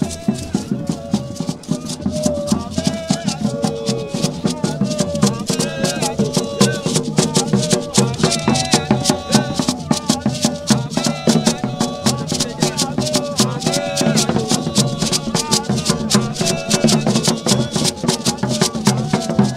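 Live street percussion: a beaded gourd rattle (shekere) shaken in a fast, steady rhythm, with a hand drum, and voices singing along over it.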